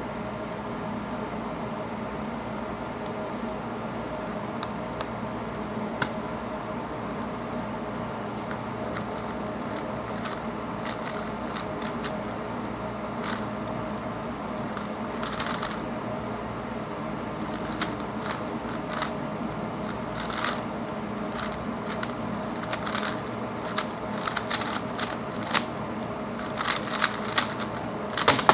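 3x3 Rubik's Cube being turned fast in a speedsolve: quick plastic clicks and clacks, sparse at first, then dense clusters through the second half. Under them runs the steady hum of an air conditioner.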